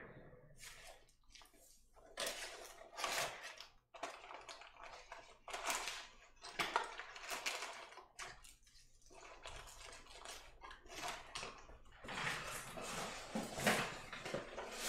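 Faint, irregular rustling and light clatter of packaging and small keyboard parts being handled, in short bursts throughout.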